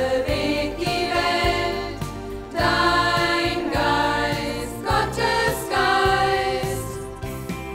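A church band performing a German new sacred song (Neues Geistliches Lied): voices singing sustained lines over instrumental accompaniment.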